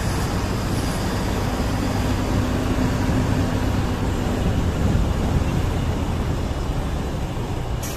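Steady road-traffic noise with a vehicle engine running.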